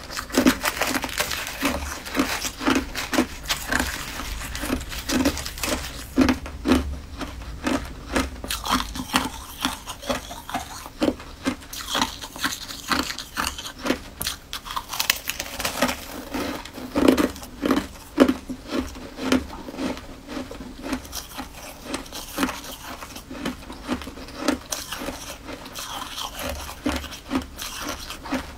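Close-up chewing of a crunchy, icy, crumbly sweet food: irregular crunches and bites follow one another throughout.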